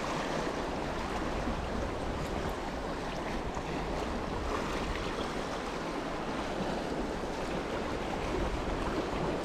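Small sea waves washing and splashing against shoreline rocks, a steady wash of surf, with wind rumbling on the microphone.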